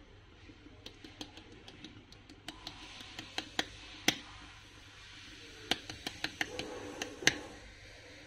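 A series of irregular sharp clicks and taps, a dozen or more, the loudest about four seconds in and again near the end, over low room noise.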